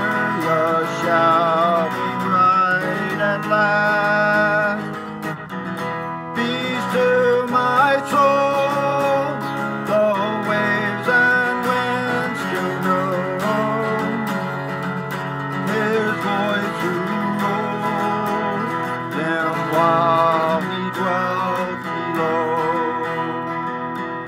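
Acoustic guitar strummed and picked, playing a song, with a brief break about six seconds in.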